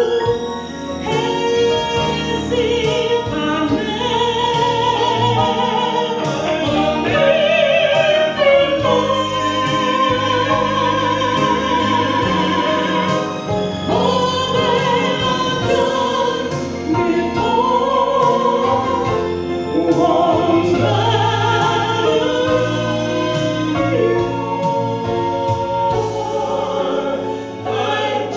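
A male and a female singer performing a gospel duet through microphones, their voices over instrumental accompaniment.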